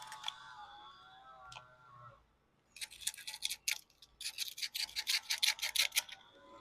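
Razor blade scraping old silicone caulk loose, in two runs of quick back-and-forth strokes starting about three seconds in.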